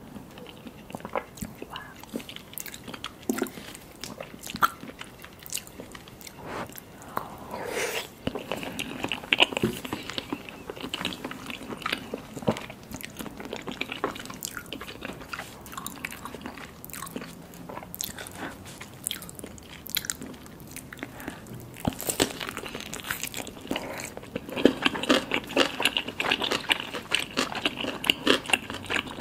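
Close-miked eating: biting and chewing with many short crunches and wet smacks, getting busier near the end.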